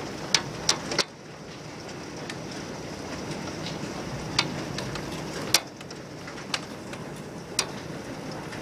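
Golf-ball-size hail coming down with heavy rain: a steady hiss with sharp, loud knocks of single hailstones striking hard surfaces, three in quick succession in the first second and several more scattered after.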